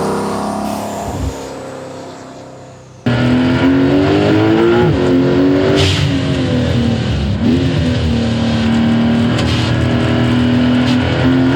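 Porsche 911 Turbo S (992.2) turbocharged flat-six through a SOUL turboback exhaust: its note first fades away over about three seconds. After an abrupt cut, the engine runs loud and fairly steady, with two brief dips in pitch along the way.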